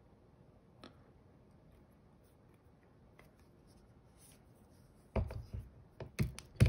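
Faint handling, then a quick run of sharp clicks and knocks from a metal pistol slide and its filler plate being handled, the loudest near the end.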